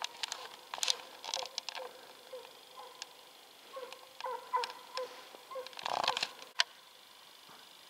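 Russian hound giving tongue in the distance, a run of short repeated yelps as it works the hare's trail. Footsteps crunch in the snow close by, loudest about six seconds in.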